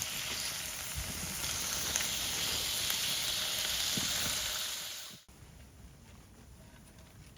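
Meat sizzling as it cooks in hot fat, a steady hiss that cuts off suddenly about five seconds in.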